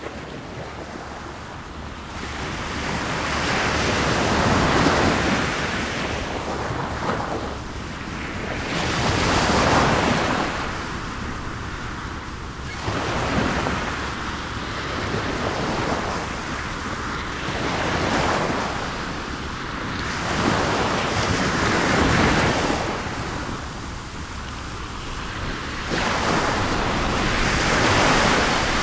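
Surf on a shore: waves washing in, swelling and falling away every few seconds.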